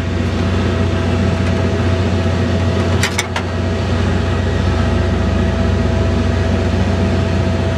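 A vehicle engine idling steadily with a low, even hum. A couple of sharp clicks come about three seconds in.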